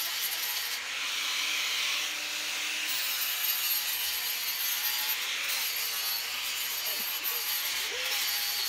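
Power flap sander abrading the surface of a green-wood chainsaw carving: a continuous scratchy rush of abrasive on wood, louder for a couple of seconds about a second in.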